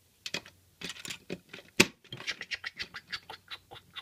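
Plastic Lego Duplo bricks and train wagons clicking and clattering as they are handled and coupled together, with one sharp snap a little under two seconds in followed by a quick run of smaller clicks.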